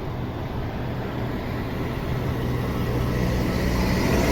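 Whoosh high-speed electric multiple-unit train approaching on the track, a low rumble growing steadily louder as it nears.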